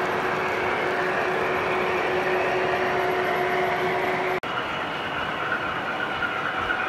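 O-gauge model trains running on the layout's track, a steady rolling rumble with a steady hum. About four and a half seconds in, the sound cuts abruptly to another train with a higher steady whine.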